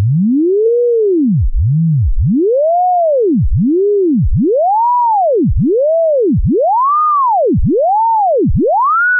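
A single pure electronic tone gliding up and down in a run of arcs, roughly one a second, like a theremin or sine-wave sweep. Taller and shorter arcs alternate, and the peaks climb steadily higher in pitch.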